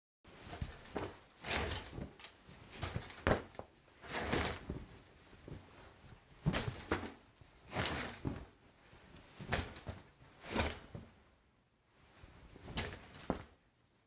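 A shower curtain pulled along its rod and a towel rubbed over the body: about a dozen brief rustling, swishing strokes, a second or so apart, with a short lull near the end.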